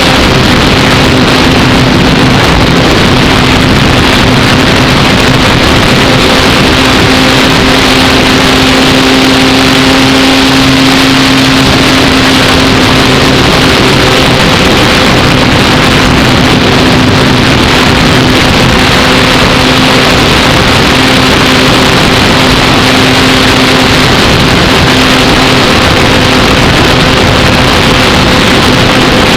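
Apprentice S15e electric RC plane's motor and propeller running steadily in flight, a constant droning hum, heard from a camera mounted on the airframe with heavy wind rush over it.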